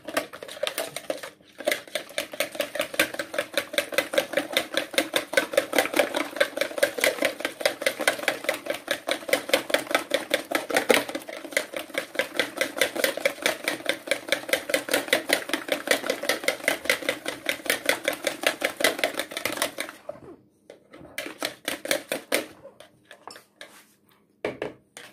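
Spiral wire whisk beating eggs in a plastic bowl: a rapid, even run of clicks as the wire strikes the bowl. It stops about twenty seconds in, and a few scattered taps follow.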